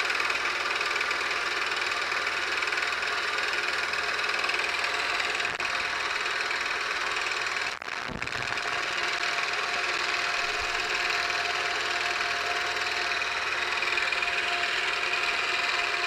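Milling machine spindle running with an end mill cutting aluminium as a stepper-motor-driven rotary table turns the workpiece, milling a radius. Steady, with a brief dip about eight seconds in.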